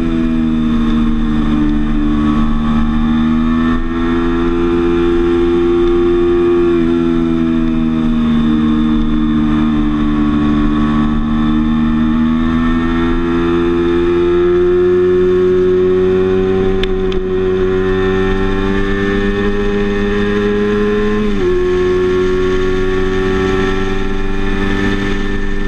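Sport motorcycle's engine running at part throttle, heard from onboard with wind rush. Its pitch rises and falls gently, then drops suddenly near the end as the rider shifts up a gear.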